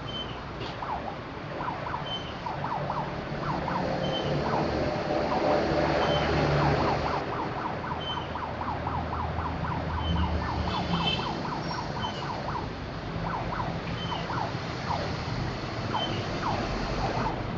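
Electronic siren-like warbling of quick rising and falling tones, with a short high beep about once a second and a low rumble underneath.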